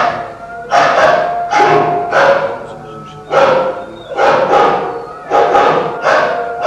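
Music: sustained held tones under loud, sudden, noisy accents that come roughly once a second.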